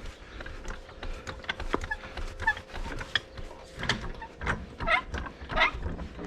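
Scattered metal clicks and knocks from a floor jack being set under a farm grinder mixer. A few short, high-pitched animal calls come in the second half.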